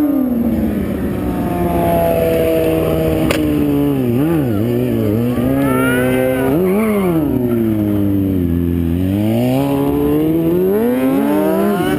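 Sport-bike engine revving as a stunt rider works the throttle, its pitch rising and falling again and again, dropping low for a couple of seconds past the middle and climbing again near the end. A single sharp click about three seconds in.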